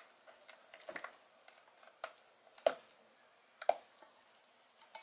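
A spatula scraping and knocking against the rim of a stainless steel pot, a few sharp separate knocks, as the last of the gelatine is scraped out into the bowl.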